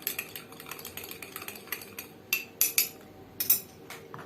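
A spoon stirring a cup of green tea, clinking lightly and rapidly against the sides, with a few sharper, louder clinks a little past halfway.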